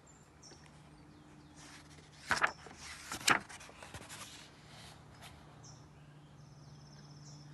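Paper page of a picture book being turned by hand: two sharp papery swishes about a second apart near the middle, with softer rustling around them, over a low steady hum.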